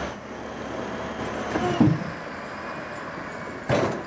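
Wheel loader with a log grapple running while it carries logs. A short creak and clunk come about two seconds in, and a brief knock near the end, as the logs and grapple shift.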